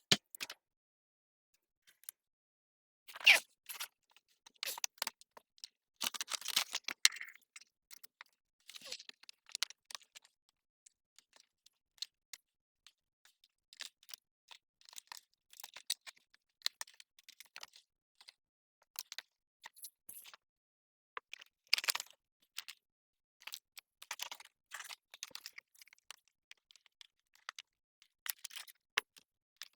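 Scattered small clicks, taps and rustles of hands handling things, with a sharper knock about three seconds in and a longer crinkling rustle a few seconds later.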